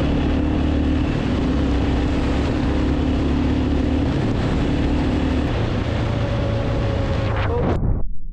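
Motorcycle engine running steadily at road speed under a dense rush of wind noise, its note changing about six seconds in. The sound cuts off abruptly near the end.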